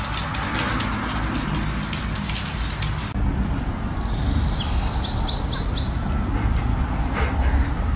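Crackling clicks for about three seconds. The sound then changes abruptly to a small bird chirping: one high chirp, then a quick run of about four, over a low rumble.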